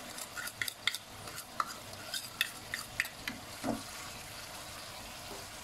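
Wooden spatula stirring diced chicken curry filling in a non-stick wok, with scattered clicks and scrapes against the pan over a faint steady sizzle from the simmering filling. The clicks thin out in the last second or two, leaving the sizzle.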